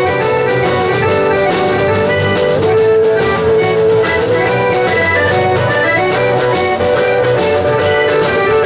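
Live folk band playing an instrumental passage between verses: an accordion carries the melody over guitar accompaniment.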